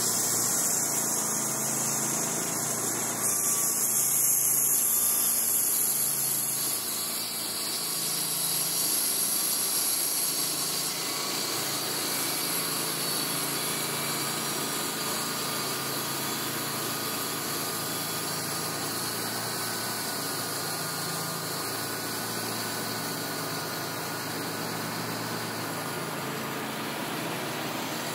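Wood-Mizer LT35 HD portable sawmill running steadily as its sawhead travels along the bed, growing a little louder twice in the first ten seconds.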